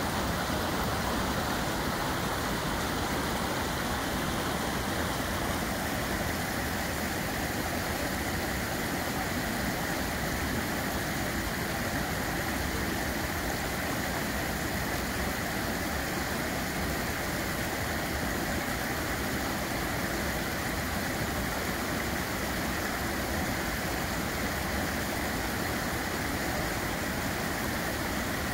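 Floodwater from the River Waveney running fast across a flooded path and grass: a steady, unbroken rush of water.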